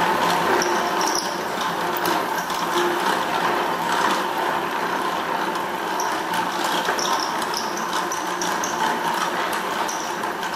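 Hand-cranked Wimshurst machine running: the rotating disc and its belt-and-pulley drive make a steady mechanical whirr, with many scattered irregular clicks.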